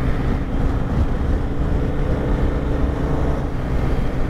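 BMW R 1250 GS boxer-twin engine running steadily at cruising speed, with wind rush over the bike's microphone.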